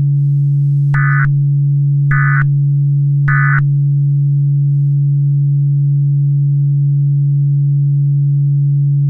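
Three short bursts of Emergency Alert System SAME data tones, about a second apart: the end-of-message code that closes an alert. Under them a steady low drone tone runs on.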